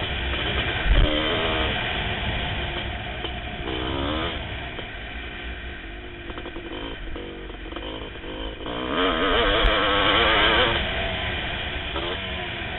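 1988 Kawasaki KX500's 500cc two-stroke single-cylinder engine under race throttle, revving up and backing off again and again. It surges loudest twice: about four seconds in, and again from about nine to eleven seconds.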